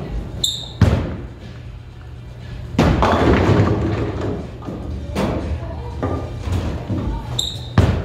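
Bowling ball crashing into string-pins about a second in, a longer stretch of clatter and noise around three seconds in, and a ball thudding onto the lane near the end, over background music and a steady hum.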